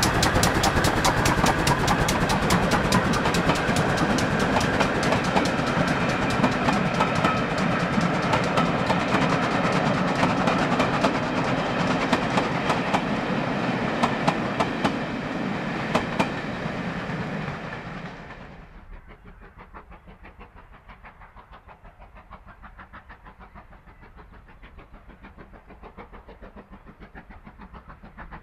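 Steam-hauled train passing close, with a rapid clatter of wheels over rail joints. About two-thirds of the way through the sound drops off sharply to a much fainter rhythmic clatter.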